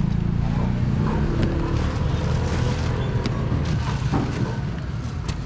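A motor vehicle's engine running low and steady, growing slowly fainter, with a few light knocks.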